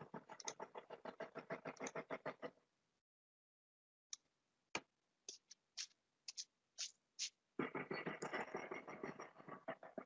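Faint rapid clicking of a computer keyboard, about ten clicks a second for the first two and a half seconds, then a few scattered single clicks, then another quick run near the end.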